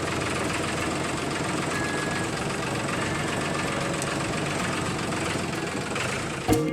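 A mini tractor model's small motor running steadily with an even mechanical hum. Music cuts in just before the end.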